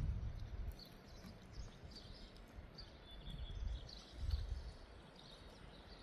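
Quiet outdoor ambience: faint, scattered bird chirps over a low background hiss, with a few swells of low rumbling noise.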